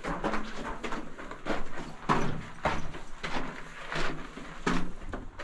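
Footsteps crunching on a gravelly rock floor between old mine rails, at a steady walking pace.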